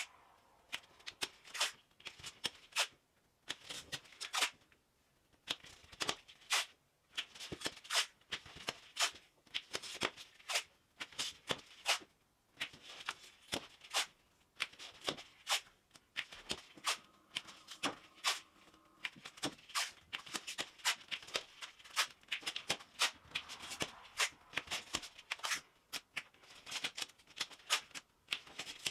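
Blue painter's masking tape being pulled off the roll and torn into strips: repeated short rasps and crackling snaps in irregular clusters as the tape unrolls and tears.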